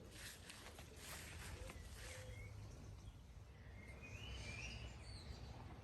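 Faint garden ambience: a few short bird chirps, high and brief, over a steady low background rumble.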